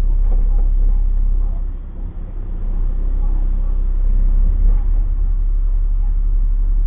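City bus engine and road noise heard from inside the cabin: a steady low rumble that dips briefly about two seconds in and then picks up again, with indistinct voices.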